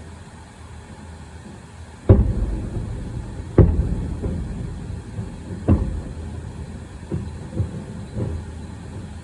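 Fireworks shells bursting: three loud booms a second and a half to two seconds apart, each trailing off in a rolling echo, then three smaller bangs in quick succession near the end.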